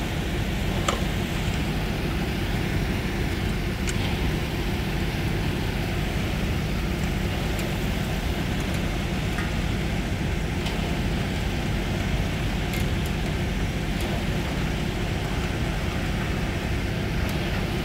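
Concrete mixer truck's diesel engine running steadily while the truck discharges concrete down its chute, a constant low drone with a few faint ticks.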